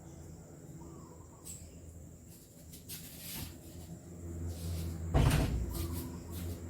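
A few knocks and clatters, as of objects being handled, the loudest about five seconds in, over a low hum.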